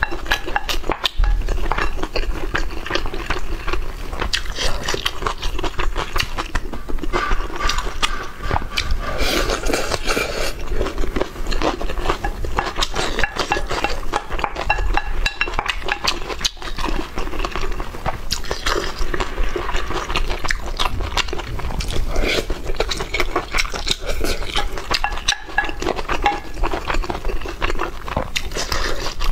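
Close-miked eating sounds: chewing and biting into braised pork belly and rice, with chopsticks and spoons clicking and clinking against bowls and plates.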